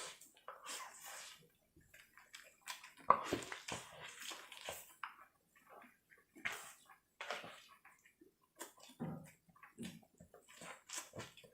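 Wet eating sounds of someone digging into lobster meat: irregular smacking, slurping and chewing with scattered small clicks.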